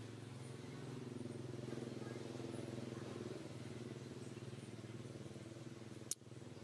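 An engine runs steadily out of sight with a low, evenly pulsing hum. A single sharp click comes about six seconds in.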